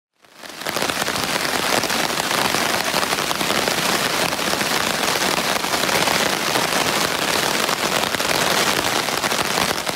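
Rain falling steadily, a dense patter of many drops. It fades in within the first half-second.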